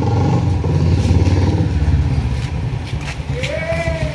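Royal Enfield single-cylinder motorcycle engine running as the bike rides slowly up, with an even low pulsing beat that eases off after about two seconds. A brief rising-and-falling shout comes near the end.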